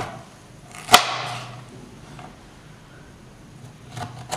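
Kitchen knife cutting through a whole pan-fried cauliflower head on a metal non-stick pan. About a second in there is one sharp clack, with a brief metallic ring, as the blade strikes the pan. Quieter cutting sounds follow, and there are a few lighter clicks near the end.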